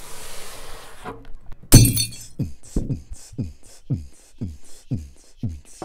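Glass shattering with a loud crash about two seconds in, then music starts with a steady drum beat of about three beats a second.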